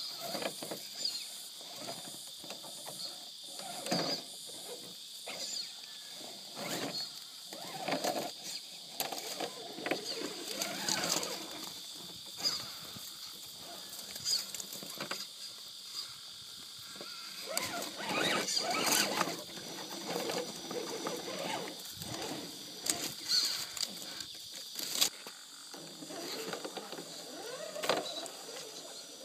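Modified Axial SCX10 RC rock crawler with a 55-turn motor whirring in short stop-start bursts as it crawls over boulders. Its 2.2 Swamper tyres and chassis scrape and knock on the rock.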